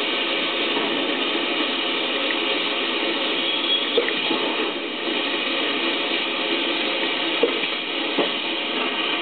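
Steady mechanical din of a 1975 Welty Way Fabriduct sheet-metal duct coil line running, with a few short sharp knocks about four seconds in and twice near the end.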